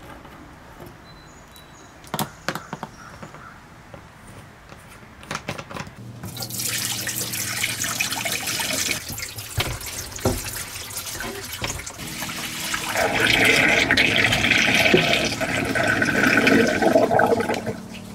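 Water poured into a stainless steel sink and running down its drain and hose: a leak test of the newly fitted drain. A few clicks come first, then the water starts about six seconds in, grows louder near the end and stops.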